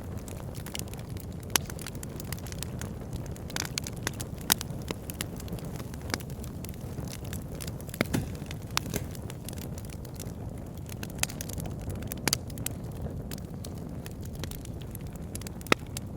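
Wood fire burning in a fireplace: a steady low rush of flame with irregular sharp crackles and pops, a few louder snaps scattered through.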